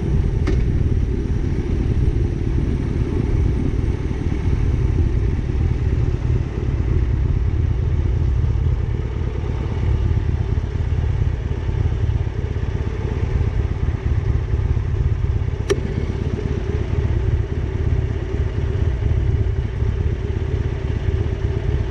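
Motorcycle engine running steadily on the move, mixed with low road and wind rumble, with two brief clicks, one about half a second in and one near the 16-second mark.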